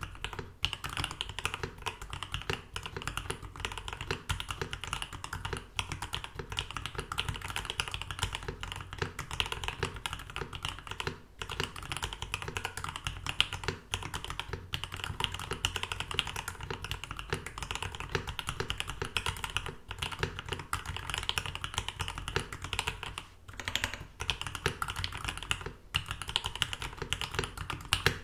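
Fast, continuous typing on a Rama Works M65-B aluminium mechanical keyboard with a brass plate, lubed and filmed Lilac switches and PBT keycaps: a dense stream of key strokes, with brief pauses about 11 and 23 seconds in.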